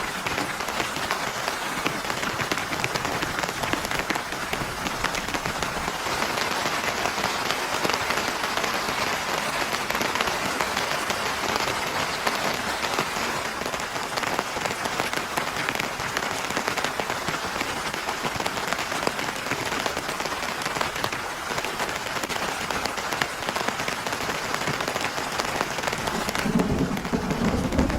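Heavy rain falling steadily, a dense hiss of many close drop impacts. About a second and a half before the end the hiss dulls and a low rumble comes in.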